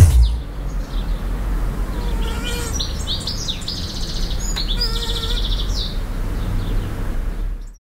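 Outdoor ambience of birds chirping and trilling over a low, steady rumble, with a mosquito's buzzing whine passing twice, a few seconds apart. The sound cuts off abruptly near the end.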